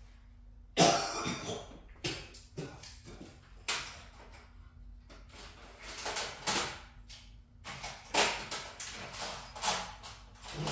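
Irregular clinks and knocks of metal tools and parts being handled during hands-on work on a motorcycle transmission, some single and some in short clusters, over a faint steady hum.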